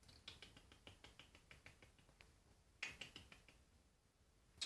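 A kitten's paws and claws lightly clicking on a wooden floor as it walks: a faint run of quick ticks, then a louder cluster about three seconds in.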